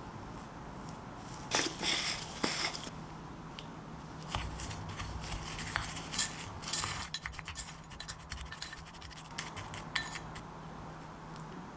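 Wooden spoon in a ceramic ramekin: a few sharp taps a couple of seconds in, then scraping and stirring through dry oats and cheese powder for about six seconds.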